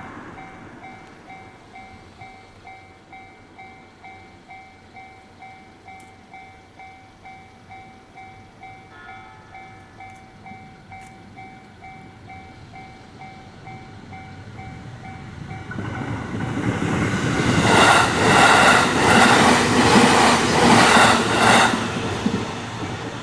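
Japanese level-crossing warning bell ringing in steady, evenly repeated electronic dings. About sixteen seconds in, a JR Mito Line train approaches and passes close by, with a rhythmic clatter of its wheels over the rail joints, loudest as it passes. The noise then falls away while the bell keeps ringing.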